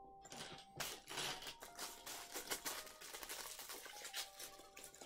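Small plastic LEGO pieces clicking and rattling against each other, mixed with the crinkle of a small plastic parts bag being handled.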